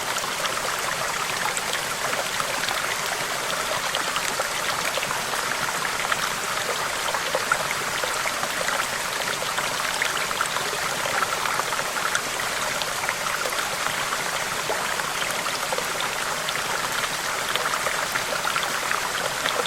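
Running water, a steady stream babbling and trickling with many small splashes and drips.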